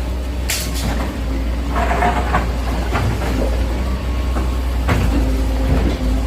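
Excavator's diesel engine running steadily under load, with several sharp knocks and clatter of demolition debris, the clearest about half a second in, around two seconds and near five seconds.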